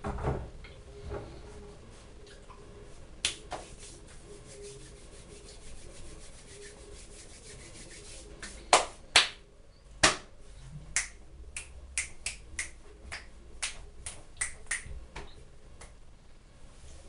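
A string of sharp snapping clicks made with the hands, scattered at first, the loudest three near the middle, then a run of smaller snaps about two a second until near the end.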